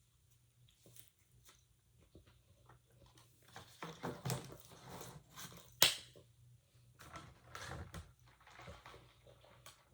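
Close-up eating sounds: quiet chewing with small clicks and crackles, and one sharper click just before six seconds in.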